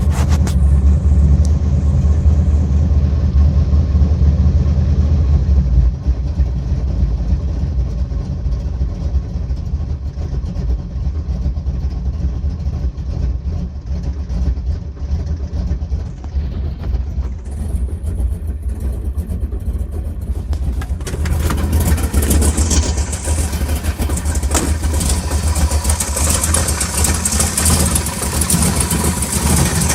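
Big-block Chevy 396 V8 with a Magnum 290HR cam running steadily, with a weird noise that the owner says isn't right. From about two-thirds of the way through, a harsher, hissier sound grows louder over the engine's low running sound.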